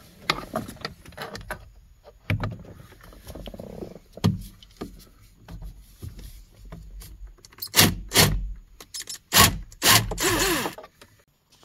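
Hand-tool work on a steering wheel's airbag retaining screws with a T30 Torx bit: irregular clicks, taps and rustles of the tool and hands behind the wheel. A few louder knocks come in the second half, and a longer scraping sound near the end.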